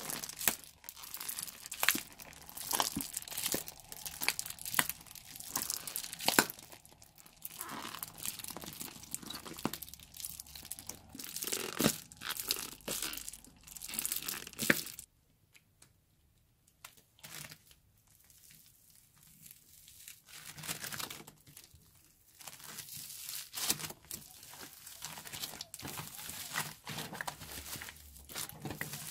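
Slime and floam bead clay being worked by hand, giving dense crackling, popping and squelching. The crackling stops for a few seconds of near quiet a little past halfway, then returns as hands squeeze and knead the slime into the floam bricks, the foam beads crunching.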